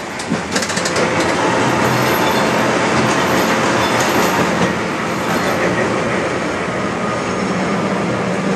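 Preserved Rotterdam tram running along the track, heard from inside the car: steady rumble and rattle of wheels on rails, with a few sharp clicks in the first second and a steady low hum coming in about seven seconds in.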